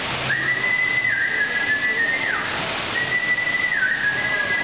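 A person whistling a series of long, high, pure notes, each held and then dipping down in pitch: the trainer's whistle cue calling a trained bird to fly down and land on an outstretched hand. A steady rush of falling water runs underneath.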